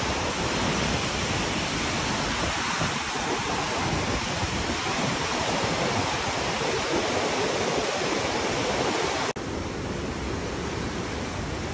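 Steady rush of a fast mountain river. About nine seconds in it cuts abruptly to a slightly quieter rush of water.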